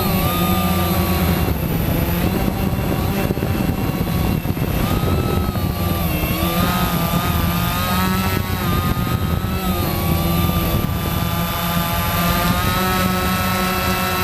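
Quanum Nova quadcopter in flight: its brushless motors and propellers whine, the pitch rising and falling as the throttle changes, over a steady low rush of air.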